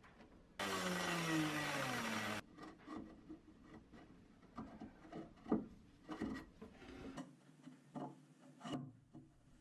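Bronze bow-thruster gear leg scraping as it is pushed into its tight-fitting hole in the fibreglass tunnel: a loud grating rub of about two seconds with a falling tone in it, starting under a second in. Scattered light knocks and taps follow.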